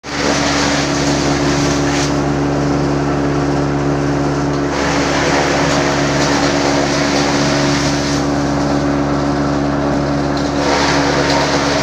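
Large forage chopper (chaff cutter), belt-driven by an electric motor, running steadily while chopping grass stalks fed into its chute and blowing the chopped grass out of its spout. A steady hum underlies a harsh chopping hiss that swells and eases a few times.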